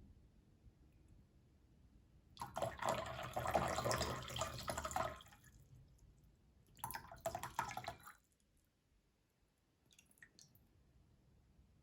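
Water poured in a thin stream from the spout of a small handmade Yixing clay teapot. It runs for about three seconds, then comes a second, shorter pour, and a few faint ticks follow near the end.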